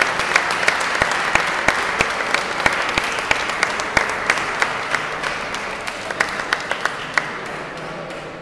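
Audience applauding, with individual sharp claps standing out, slowly dying away toward the end.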